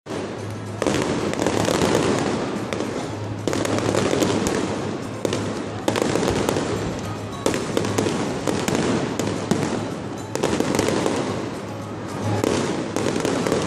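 Aerial firework shells bursting overhead, a loud bang every two seconds or so, with a dense run of sharp cracks and pops in between.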